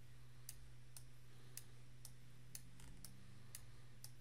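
Faint clicks of a computer mouse button, about two a second, over a low steady hum.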